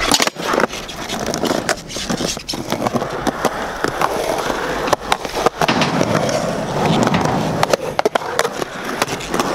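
Skateboard wheels rolling on concrete, with several sharp clacks of the board popping, landing and knocking on concrete.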